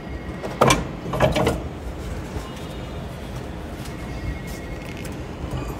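Car battery being lowered and slid into its tray in the engine bay: two loud scraping knocks in the first second and a half, then low steady background noise.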